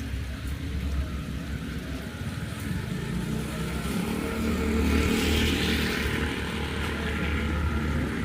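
A motor vehicle going past on a wet road: a low engine rumble with a hiss of tyres on water that swells about five seconds in, then eases.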